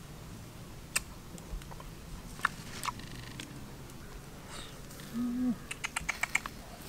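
Scattered sharp clicks and ticks from a charcoal fire under a whole catfish roasting on a stick rack, with a quick run of ticks near the end and one short low tone about five seconds in.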